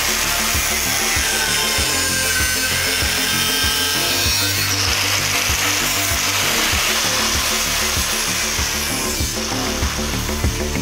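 Hitachi angle grinder with a cutting disc cutting through a metal AK magazine held in a vise: a steady grinding hiss whose whine dips and recovers as the disc bites, easing off near the end. Background music with a steady beat plays underneath.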